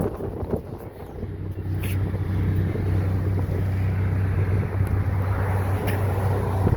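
A motor vehicle running, its low hum getting louder over the first two seconds and then holding steady.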